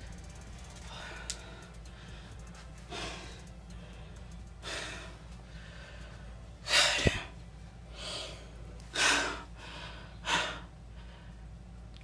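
A person breathing heavily: about six loud breaths or sighs, one every one to two seconds, the loudest about seven seconds in, over a faint steady low hum.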